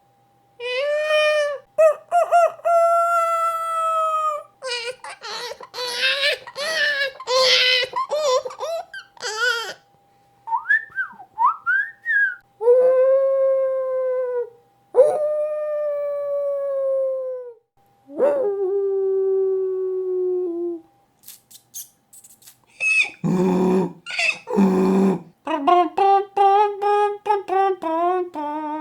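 A man imitating sounds with his voice, one after another: a rooster crowing, a baby crying, R2-D2's warbling beeps, several long wolf howls, a rat's squeaks, a donkey braying and a trumpet.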